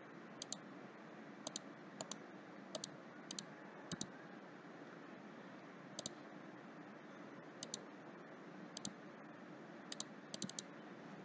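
Faint computer mouse clicks, about a dozen at irregular intervals, most heard as a quick double tick, over a steady low hiss.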